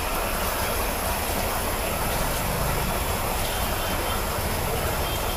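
Steady noise of a jeweller's soldering torch flame, used to solder shut the cut ends of small silver bangles.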